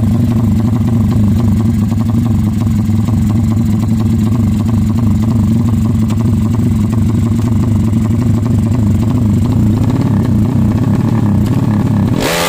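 Tuned drag-racing motorcycle engine running loud and steady at raised revs, then revved sharply near the end.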